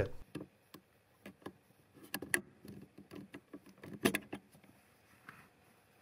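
Scattered faint plastic clicks and rattles of a 2014 Mazda3's brake light switch being twisted and pulled out of its metal mounting bracket, in two small clusters.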